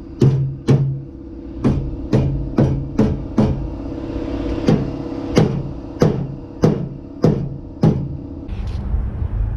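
Hammer blows on steel, about two a second with a short break partway, each ringing briefly, as the bent body of a 2006 Toyota Tacoma is worked under tension from a chain body puller. The blows stop shortly before the end.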